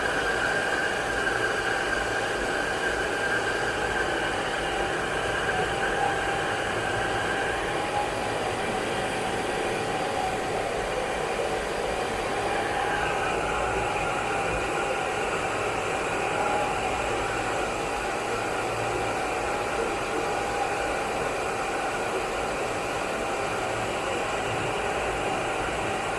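Cooling fans of many Bitcoin mining machines running together: a steady, loud whir with several high whining tones over it.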